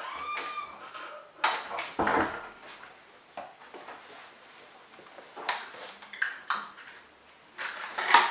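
Plastic draw balls clicking and knocking against a glass bowl as they are dropped in and picked out by hand, with a short ringing glass ping just after the start.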